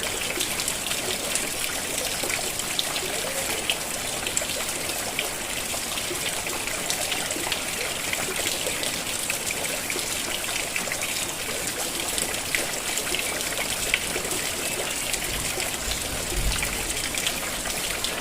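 Steady rain falling, a dense patter of small drops over a continuous hiss, with water trickling and running.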